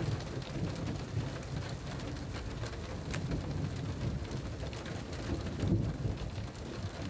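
Rain falling steadily, with a low uneven rumble underneath and a few sharp taps scattered through.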